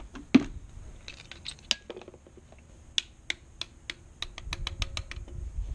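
A series of irregular sharp clicks and taps, about fifteen over several seconds, with a low rumble under the last second or so.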